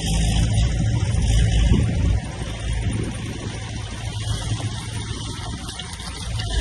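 Diesel engine of heavy earthmoving equipment running with a steady low drone, easing off about two seconds in.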